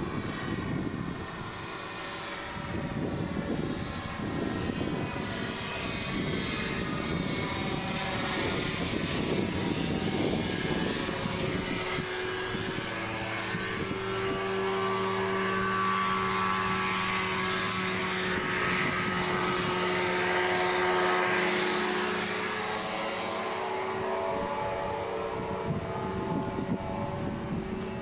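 A small propeller engine droning overhead. Its steady tone comes in about halfway through, is loudest a little later, then eases off.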